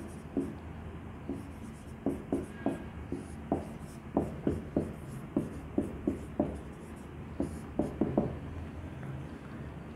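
Writing by hand on a board: a quick run of short taps and strokes as letters are written. The taps are sparse at first and come thick from about two seconds in until just past eight seconds.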